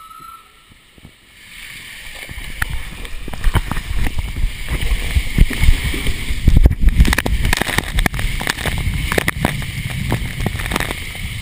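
Riding down an enclosed water slide tube, heard from a camera carried by the rider: rushing water and a low rumble build up over the first couple of seconds, with frequent knocks and thumps as the rider bumps against the slide wall.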